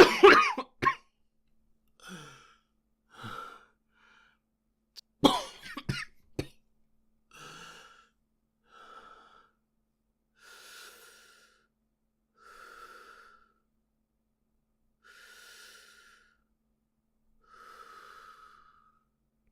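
A boy coughing: a burst of hard coughs at the start and another about five seconds in, then about six long breaths spaced a couple of seconds apart.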